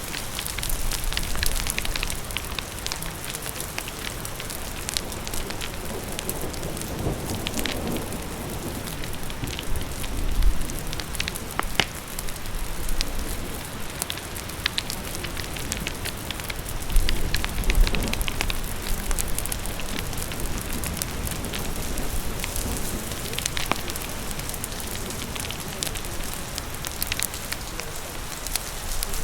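Rain and a crackling fire together: a steady hiss of rain with sharp pops and snaps scattered through it.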